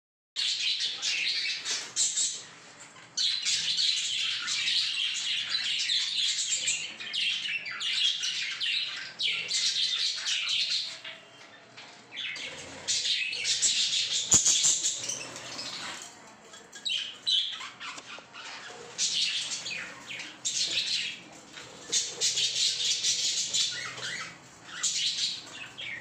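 A colony of budgerigars chattering and squawking in dense, high, scratchy bursts of a few seconds each, with short lulls between them. A single sharp click comes about halfway through.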